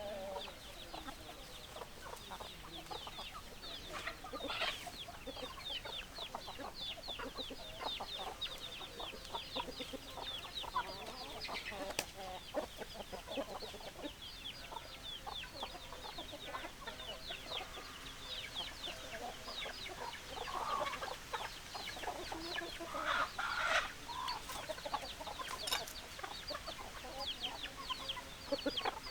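A flock of chickens clucking, over a constant dense layer of high-pitched chirping, with a few louder calls about four seconds in and again near the end.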